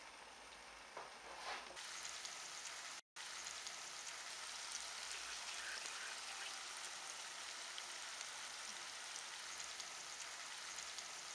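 Sausages and sliced onions sizzling in a frying pan: a steady crackling hiss, brighter after the first couple of seconds. It cuts out for a moment about three seconds in.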